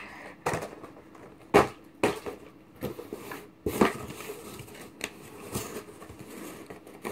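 Unboxed merchandise and its packaging being handled and set down: scattered light knocks, clicks and rustles, about one or two a second.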